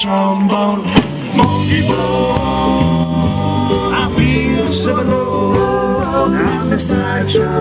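Live rock band playing with electric guitar and drum kit: held chords with sharp drum hits.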